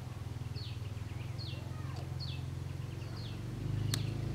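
A bird calling, repeating a short falling chirp about twice a second, over a steady low hum that grows louder a little before the end. A single sharp click comes about four seconds in.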